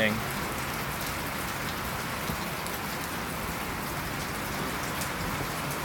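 Steady rain falling during a thunderstorm, an even hiss with no thunder clap.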